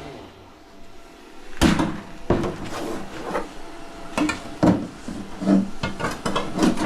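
A series of sharp knocks and clunks, about six spread over several seconds after a quiet start, as a seat is handled and set into place on a cross-kart frame.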